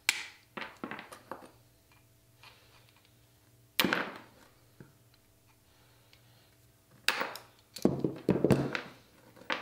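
Tile nippers snapping small pieces off a ceramic tile: sharp cracks, one at the start, one about four seconds in and a quick run of them from about seven seconds on, with smaller clicks between.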